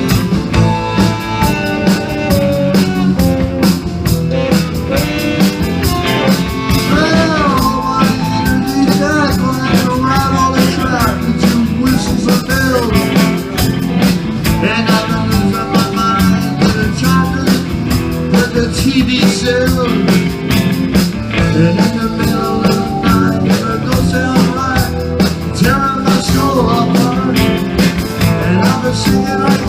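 A rock band playing a song, with guitar over a steady drum beat.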